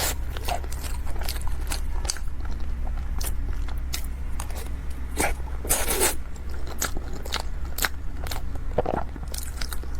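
Close-miked eating sounds from a soft taro-paste dessert being bitten and chewed: many short wet clicks and mouth smacks, one louder smack about six seconds in, over a steady low hum.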